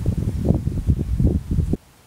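Wind gusting against the microphone: a low, uneven rumbling buffet that cuts off suddenly near the end.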